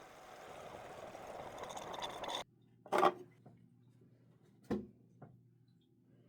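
Saline sinus rinse: a rush of water that grows louder and higher before cutting off suddenly about two and a half seconds in. Two short, loud bursts follow, about three seconds and nearly five seconds in, with a couple of fainter ones after them.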